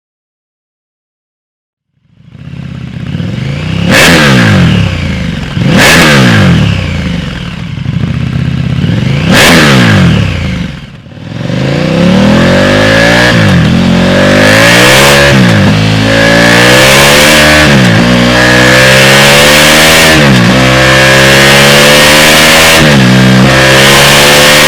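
KTM 1290 Super Duke R's V-twin through an SC Project SC1-R slip-on exhaust, starting up after a couple of seconds, then three sharp throttle blips. It then accelerates hard, the pitch climbing and dropping back about every two seconds as it shifts up through the gears.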